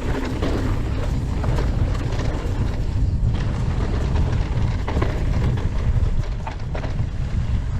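Steady low rumble of wind buffeting the camera microphone while riding, with scattered ticks and knocks from a mountain bike rolling over a rough dirt trail.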